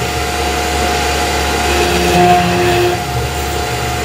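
Tormach PCNC 1100 CNC mill running a small 1/8-inch four-flute endmill, cutting screw-head pockets into a stainless steel plate under flood coolant. A steady machine whine with a few held tones, swelling briefly about two seconds in as the cut moves along.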